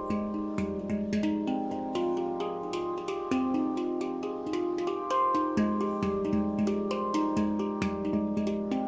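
Nimo handpan tuned to F low pygmy, played with the fingertips: a continuous flow of soft, ringing steel notes, several strikes a second, each note sustaining and overlapping the next.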